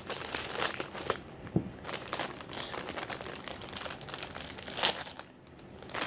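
Crinkling and crackling of a toy's plastic packaging being handled and opened, with irregular rustles and sharp crackles and a brief lull near the end.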